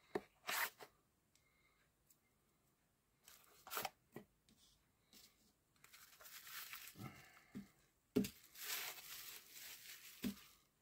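Plastic bubble wrap crinkling and rustling in bursts as a packed knife is unwrapped, with a few light knocks of the cardboard box being handled. The rustling is heaviest in the second half.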